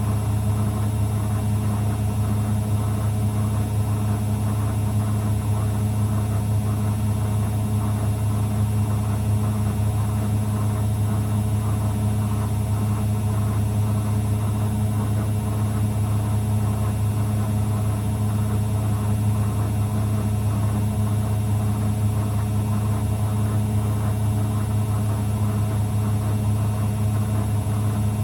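Zanussi FL984CN front-loading washing machine running steadily with a constant low hum and no breaks.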